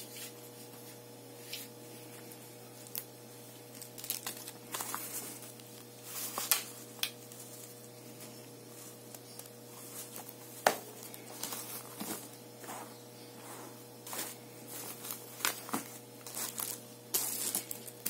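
Plastic wrapping and a fabric drawstring pouch crinkling and rustling as they are handled, in irregular bursts with a few sharp clicks, over a steady low hum.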